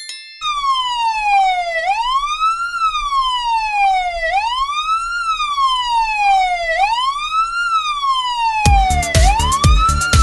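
Police car siren wailing, its pitch rising quickly and falling slowly about every two and a half seconds. About nine seconds in, a drum beat and music join underneath the siren.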